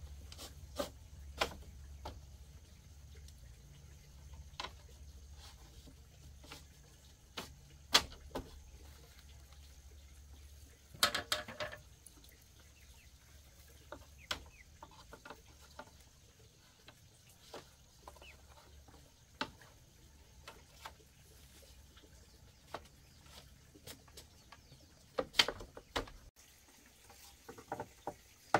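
Split bamboo slats knocking and clacking against each other as they are woven into a bamboo door panel: scattered sharp knocks, with a short flurry of rattling about eleven seconds in and another near the end.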